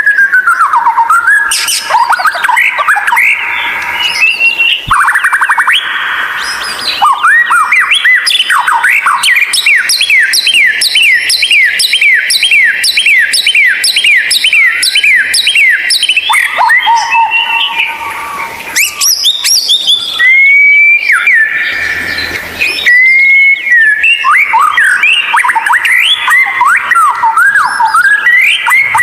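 White-rumped shama (murai batu) singing loudly and continuously: a varied run of whistled, sliding notes, including a long series of rapid repeated down-slurred notes, broken by a few harsh, rasping passages.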